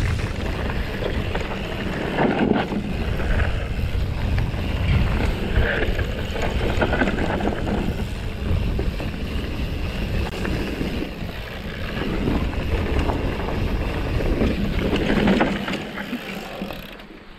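Mountain bike running fast down a dirt singletrack: wind rumbling on the helmet- or chest-mounted action camera's microphone, tyre noise on dirt, and the bike clattering and rattling over roots and bumps. It dies down near the end.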